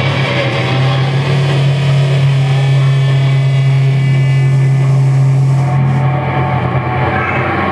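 A black metal band's distorted, amplified guitars and bass hold one loud, low droning note for about six seconds, which loosens near the end.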